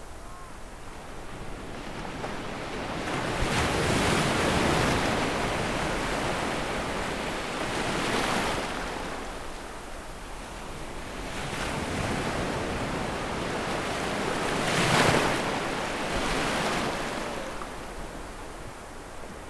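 Waves washing up on a sandy beach: the surf swells and recedes about every three to four seconds, the loudest surge about fifteen seconds in.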